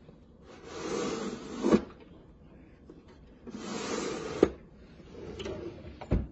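Wooden tool-chest drawer and its inner drill-bit tray being slid along wooden runners, three slides each ending in a sharp knock as it stops; the last is fainter.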